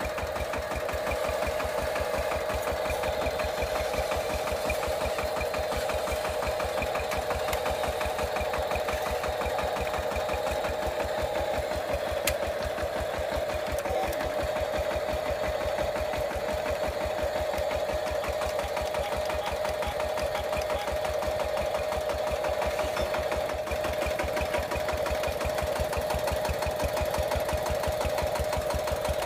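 The small engine of a homemade remote-control công nông farm-tractor model runs steadily, with a fast, even chugging and a steady whine above it.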